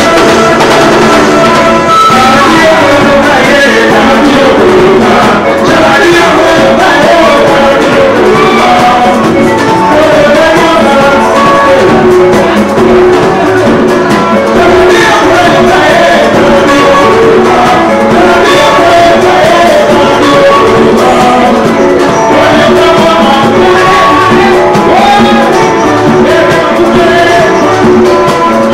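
Loud live band music with a group of voices singing together over drums, continuous throughout.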